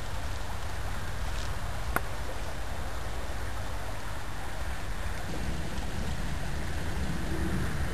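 Steady low rumble of outdoor background noise, with one sharp click about two seconds in; the rumble grows a little louder near the end.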